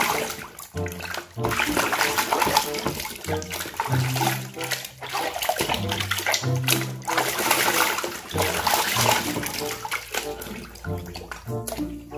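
Water sloshing and splashing as a hand scrubs a plastic toy car in a basin of muddy water, with background music playing over it.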